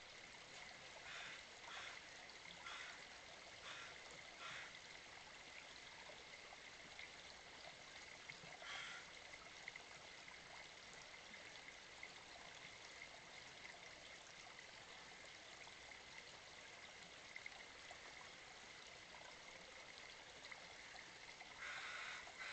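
Faint, steady trickle of a small creek, with a few short faint sounds about one to four seconds in and again about nine seconds in.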